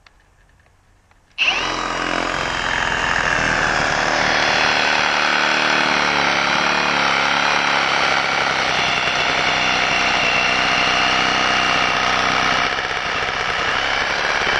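Milwaukee M18 Fuel Sawzall cordless reciprocating saw starting about a second and a half in and running steadily, its heavy-duty wood-cutting blade sawing through a tree trunk.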